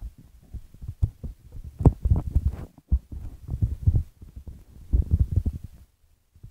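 Irregular low rumbling and thumps, mostly deep in pitch, stopping about six seconds in.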